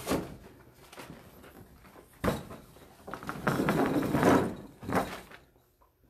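Handling of a board on a wooden easel: a sharp thunk about two seconds in, then a second or so of sliding and scraping as it is set in place, and another knock near the end.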